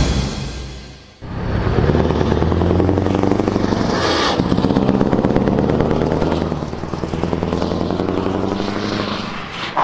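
Loud intro music fades out in the first second, then a Scania 650 S truck's 16-litre V8 diesel runs steadily as the truck drives slowly past.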